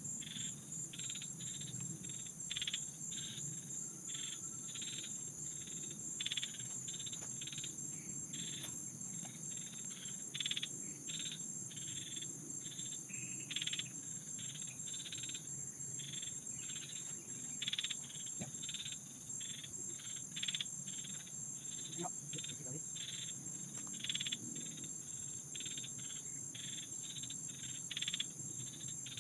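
Insects calling in the grass: a steady high-pitched buzz with a pulsing chirp repeating about twice a second.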